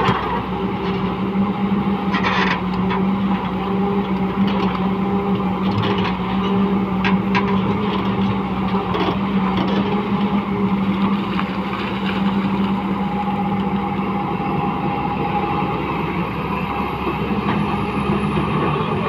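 Hyundai crawler excavator's diesel engine running steadily under digging load, a constant droning hum, with a few brief knocks and scrapes as the bucket works through wet mud and rock.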